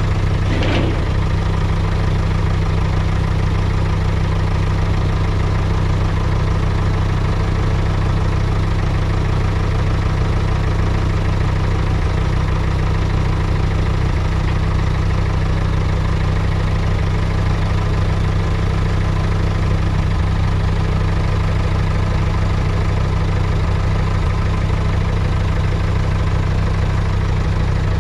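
Farm tractor engine idling steadily, with a brief sharper clatter about a second in.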